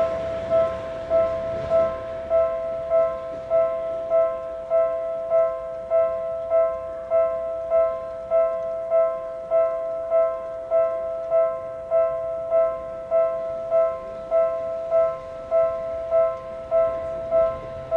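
A Japanese railway level crossing's electronic warning bell ringing in a steady, even rhythm of about 1.7 dings a second. It signals that the crossing is closed for a train. Faint rail noise fades out in the first two seconds.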